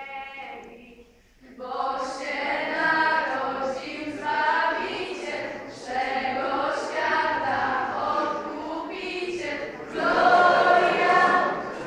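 A group of young voices singing a Polish Christmas carol (kolęda) together. The singing starts about a second and a half in, in held phrases with short breaks, and grows louder near the end.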